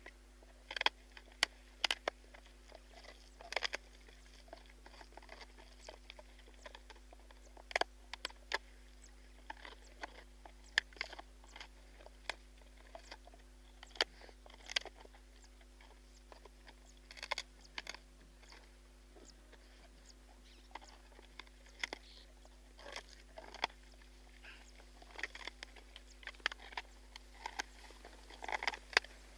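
Spotted hyaena crunching buffalo bones, recorded close up: irregular sharp cracks and crunches of bone in the jaws, coming in clusters with short quieter gaps between.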